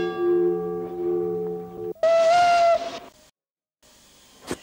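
A railway signal bell rings on and is cut off abruptly about two seconds in. A steam locomotive's whistle then gives one short blast of under a second, and a single sharp click comes near the end.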